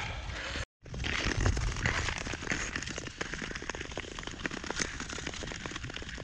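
Long-distance ice skate blades scraping and crackling over natural lake ice, many fine clicks over a low rumble of wind on the microphone. The sound breaks off for a moment under a second in, then carries on.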